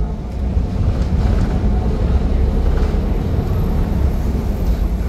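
Ferry engine running steadily as the boat comes alongside to berth, with wind buffeting the microphone.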